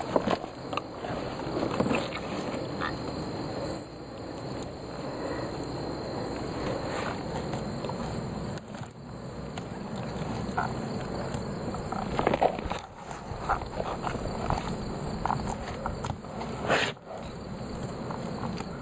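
Night insects chirping in a dense, steady high-pitched pulsing chorus, with scattered small knocks and rustles of hands working a fish free of a net.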